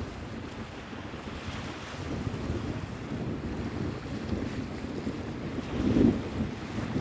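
Sea waves washing in, with wind buffeting the microphone and a louder low rumble about six seconds in.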